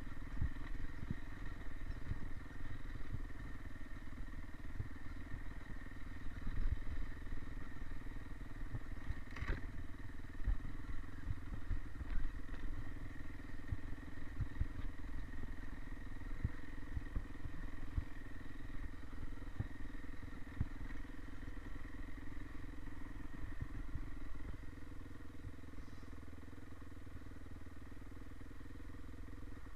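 Dirt bike engine running while riding down a rough dirt trail, with frequent knocks and rattles from the bike going over bumps. Near the end the engine becomes quieter and steadier.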